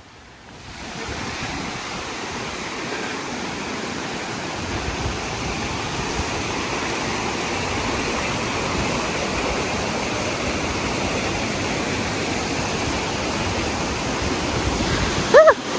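Waterfall rushing: a steady noise of falling water that swells over the first second or two, then holds even.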